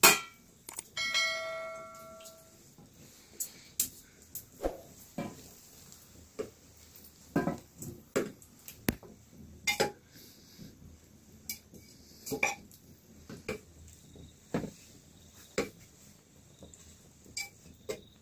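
Metal tongs clinking and tapping against a steel plate and a pressure cooker as boiled potatoes are lifted out and set down on the plate, a separate knock every second or so. About a second in, the steel plate rings briefly after a knock.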